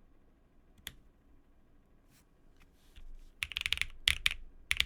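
Mechanical keyboard being typed on: a few single key presses, then a quick burst of rapid keystrokes starting about three and a half seconds in.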